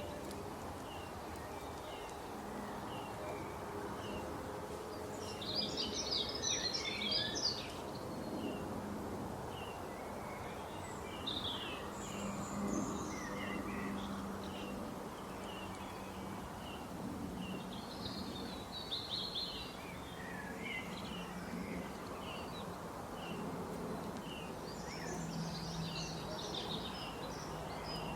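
Several small birds chirping and twittering: short high chirps throughout, with three spells of rapid, dense twittering, over a steady background hiss and hum.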